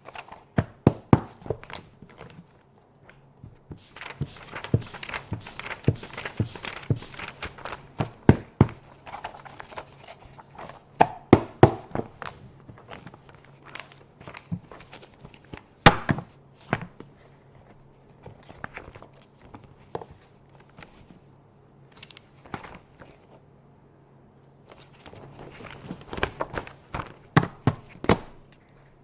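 Office paper being handled: rustling and crinkling mixed with many sharp taps and clicks, broken by a few short quiet pauses. One especially loud, sharp click comes about halfway through.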